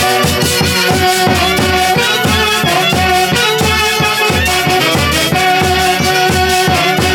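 A Huancayo orquesta típica playing a huayligia, an Andean folk dance tune: a sustained melody line over a steady, regular bass beat.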